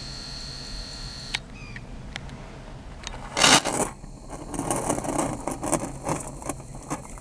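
Handling noise from a hand-held camera being moved about inside a car: a sharp click about a second and a half in, a short rustle a couple of seconds later, then scattered rubbing and tapping. A faint steady high whine stops at the click.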